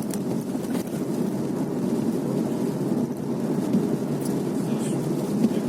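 Steady rumble of a car driving in the rain, heard from inside the cabin: tyre and road noise on a wet road with rain on the car, and a few faint ticks.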